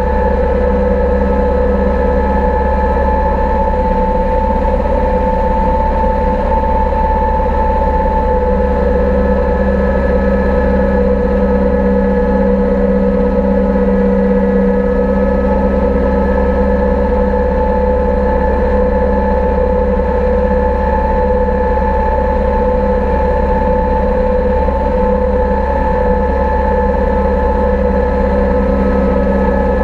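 Deutz 6206 tractor's air-cooled diesel engine running steadily under load while it drives a Fella mower cutting tall grass, at an even engine speed throughout.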